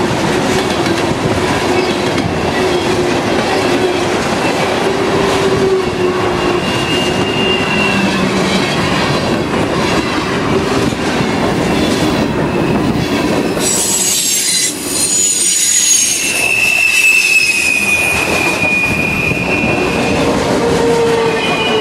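A train passing close by, its steel wheels squealing on the rails over a steady rumble and clatter. Several thin, high-pitched squeals come and go as it passes.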